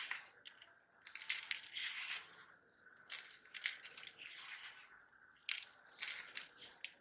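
Meat grinder crushing London Dairy candies: irregular crunching and crackling with sharp clicks, coming in bursts of a second or so.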